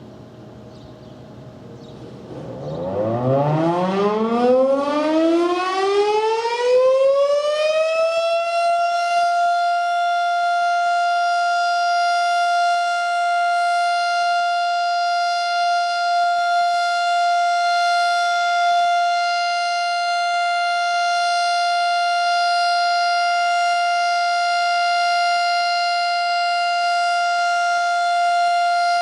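Darley STH-10 electromechanical outdoor warning siren winding up on a test. A couple of seconds in, its pitch rises from low to high over about six seconds, then it holds one steady, loud tone.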